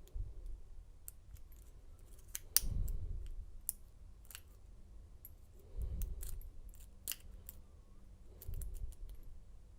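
Irregular small metallic clicks and scrapes of a lock pick and tension wrench working the pin stack of a pin-tumbler lock, with spool pins in it. Three short low rumbles of the lock being handled come in about two and a half, six and eight and a half seconds in.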